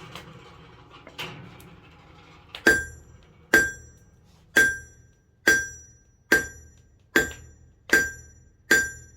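Hammer blows on steel over an anvil while hand forging a broadhead: eight sharp strikes, about one a second, each ringing clearly and fading before the next, after a couple of fainter knocks at the start.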